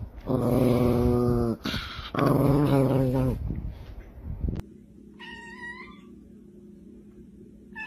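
A small dog vocalizing twice, two drawn-out calls of about a second each, begging for more. A few seconds later a cat gives one short meow.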